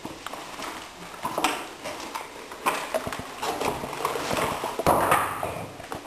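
Irregular footsteps and scuffs on rock inside a cave: a scattered run of sharp clicks and knocks, with a louder scrape about five seconds in.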